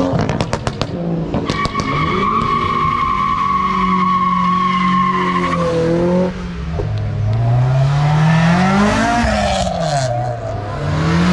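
Performance cars pulling away hard. It opens with a quick string of exhaust pops, followed by about four seconds of steady, high tyre squeal over an engine held at constant revs. A Mazda MX-5's engine then revs up, drops at a gear change and rises again, with a few more crackles near the end.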